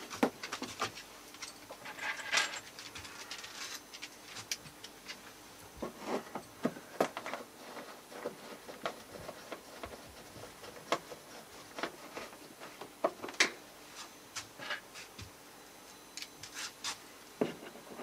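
Hand screwdriver driving small screws into thin wooden veneer trim: irregular light clicks and short scraping rubs.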